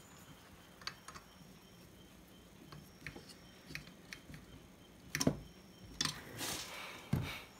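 Screws being fitted with a screwdriver on an amplifier board: scattered light clicks and taps, with a few louder knocks in the second half.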